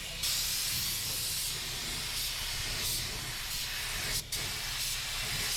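Compressed-air spray paint gun hissing steadily as paint is sprayed, the hiss cutting out for a moment twice as the trigger is let off.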